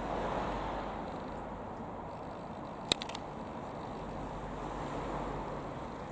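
Steady drone of a Rockwell Commander 114 single piston-engine light aircraft flying past at a distance, slightly louder at first and then easing. A sharp click about halfway through.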